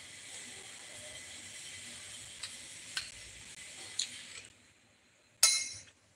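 Quiet eating sounds against a faint hiss: a few light clicks, then one sharp clink near the end, as rice and fish are eaten by hand from a glazed ceramic plate.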